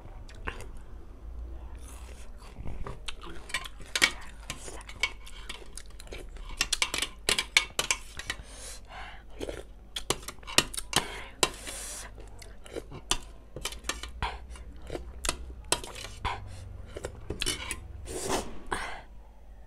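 Fork and spoon clinking and scraping against a stainless steel plate, in many short, sharp clinks, with chewing in between.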